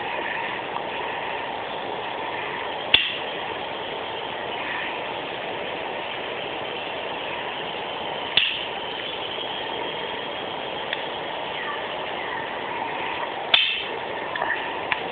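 A steady rushing noise throughout, with three sharp clicks about five seconds apart, typical of a Swiss Army knife's tools snapping open or shut against their springs.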